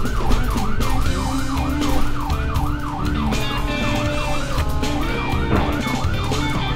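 Ambulance siren in a fast yelp, its pitch rising and falling about three times a second, over background music with a beat.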